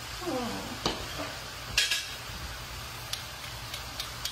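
Shaved beef sizzling faintly in a skillet while a metal garlic press and spoon clack several times as garlic is pressed and knocked off over the pan; the sharpest clack comes a little under two seconds in.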